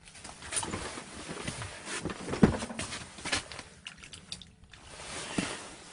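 Close, irregular rustling and clattering handling noises with many small clicks, and one louder knock about two and a half seconds in.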